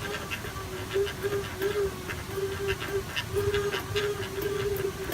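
FPV racing quadcopter's motors and propellers buzzing at a near-steady pitch, with short dips and breaks every half second or so.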